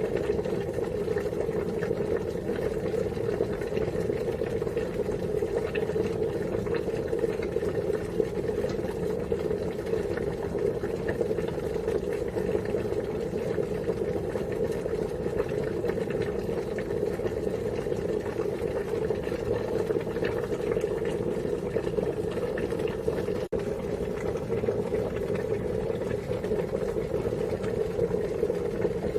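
Water at a steady rolling boil, bubbling continuously, with a momentary break in the sound about 23 seconds in.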